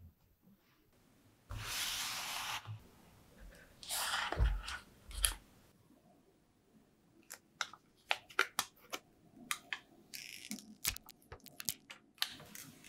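A Xiaomi Mi 9T phone and its cardboard box being handled: two spells of papery rustling and scraping with a few soft thuds in the first half as the phone is lifted out of the box tray, then a run of light clicks and taps as the phone in its plastic wrap is turned in the hand.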